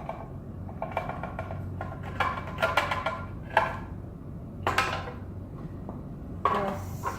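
Hard plastic clicking and clattering in about five short bursts, from handling the Hoover Rogue 970 robot vacuum's dust bin and filter parts.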